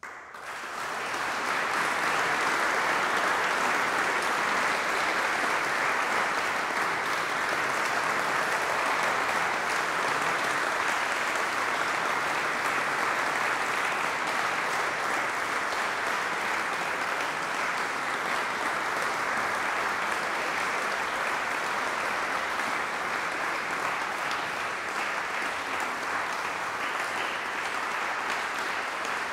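Audience applauding at the end of a piece: clapping breaks out of silence, builds within about a second to a steady, dense applause, and eases slightly near the end.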